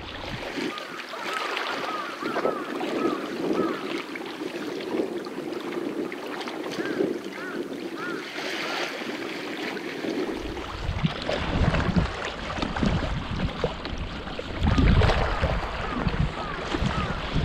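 Sea water sloshing and lapping against the rocks, with wind on the microphone. From about ten seconds in, gusts of low wind rumble come and go, the strongest near the end.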